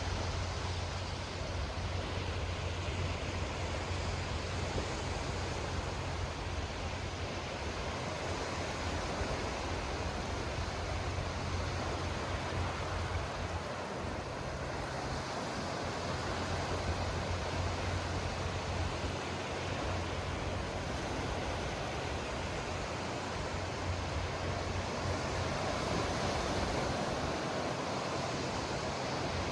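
Sea waves washing steadily, an even rush of surf noise over a constant low rumble, with gentle swells in level but no single wave standing out.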